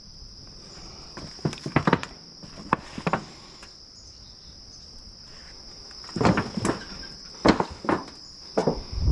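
Footsteps over scattered sheet-metal tin and dry leaf litter, several sharp steps in two bunches, about 1.5 to 3 seconds in and again from about 6 seconds in. Behind them an insect keeps up a steady high-pitched trill.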